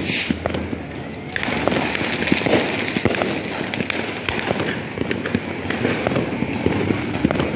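Fireworks and firecrackers going off all around: a brief hiss at the start, then from about a second and a half in a dense, continuous crackle of many overlapping small pops and bangs.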